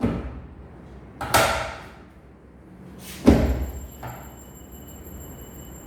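A series of knocks and thuds: a dull one at the start, a sharp one about a second and a half in, the loudest and deepest about three seconds in, and a lighter one just after, each dying away quickly. A faint high steady whine comes in about three seconds in.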